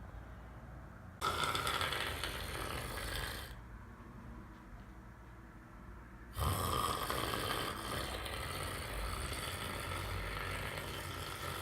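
A person snoring: two long, rasping snores, the first about two seconds long and the second, starting about six seconds in, more than twice as long.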